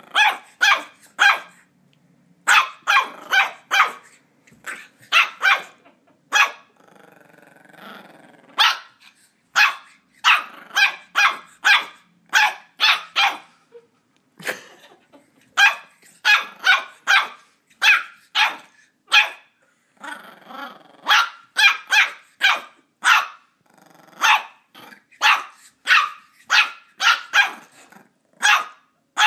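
Border terrier puppy barking at a toy ball in play, in quick runs of short barks with brief pauses between runs. About seven seconds in, the barking gives way to a quieter, drawn-out growl for a couple of seconds.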